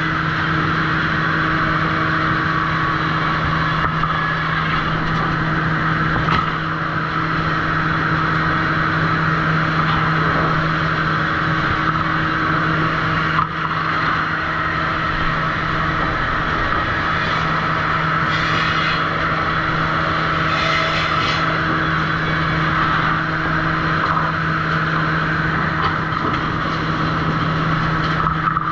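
Sawmill machinery running steadily at the trim saw: a loud, even drone with a steady hum and a few light knocks.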